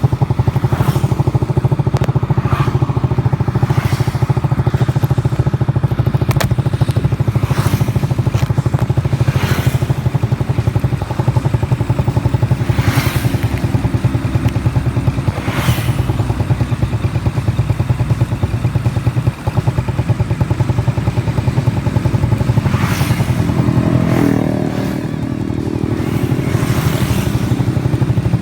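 Honda Wave 110's single-cylinder four-stroke engine running steadily at high revs on the move. About 24 seconds in, the revs dip briefly and then climb again.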